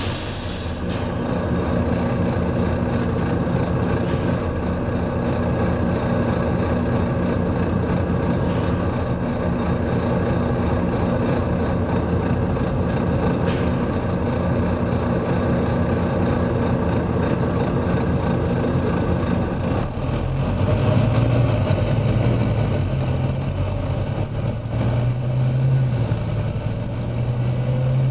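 Volvo B9TL bus's six-cylinder diesel engine running steadily, with short hisses of air from the bus's air system at the start and a few more times in the first half. About 20 seconds in, the engine gets louder and deeper as it works harder, with a slowly rising whine near the end.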